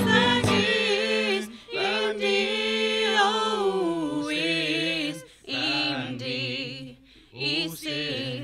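Singing, largely unaccompanied, in long phrases with held notes and vibrato, breaking off briefly about two and five seconds in.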